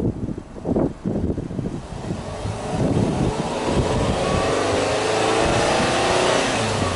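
Subaru Impreza S-GT's turbocharged flat-four (boxer) engine free-revved while parked, its pitch climbing steadily over a few seconds and held high near the end, heard from beside the exhaust. Wind buffets the microphone in the first couple of seconds.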